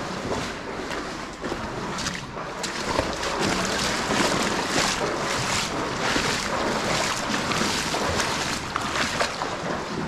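Wading footsteps in waders sloshing and splashing through shallow water in a stone tunnel, a continuous run of swishes and splashes that swell and fall with each stride.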